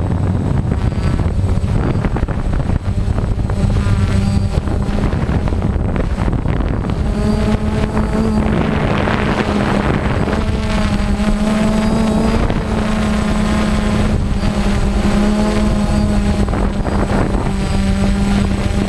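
Quadcopter drone's electric motors and propellers, heard from its onboard camera, whining steadily as it flies, the pitch of the upper tones wavering as the throttle shifts.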